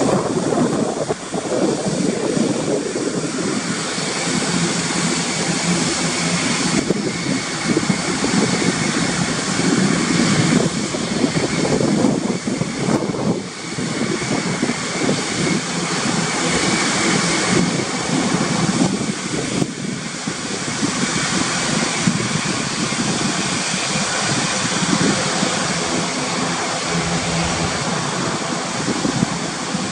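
Airbus A400M's four turboprop engines running with propellers turning as the aircraft taxies and turns on the ground: a loud, steady engine and propeller noise.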